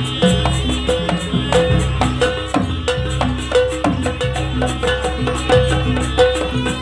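Jaranan ensemble music from East Java: drums and struck gong-chime notes repeating in a steady rhythmic pattern, with a wavering reed melody above.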